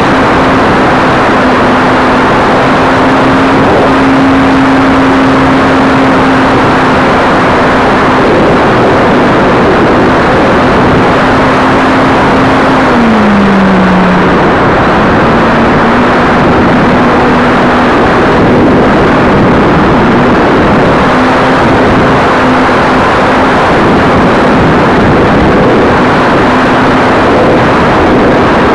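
Electric motor and propeller of a ParkZone F4U Corsair RC plane in flight, heard from its onboard camera: one steady tone under loud wind rush on the microphone. The pitch drops about halfway through, then comes back up partway.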